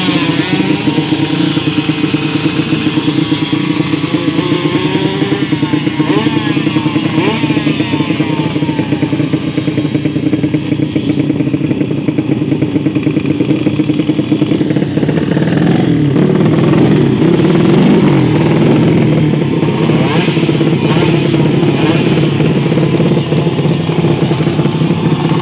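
Several two-stroke drag motorcycles running together at the start line, their engines revved up and down in quick rising and falling blips, swelling louder about two-thirds of the way through.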